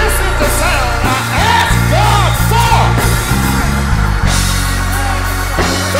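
Loud gospel praise music: a heavy, steady bass line with a singing voice over it that swoops up and down in short arched phrases.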